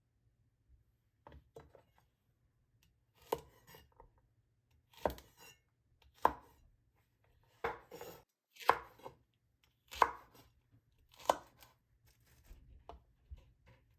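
Kitchen knife chopping food on a cutting board in slow single cuts, roughly one every second or so, with a few fainter taps near the end.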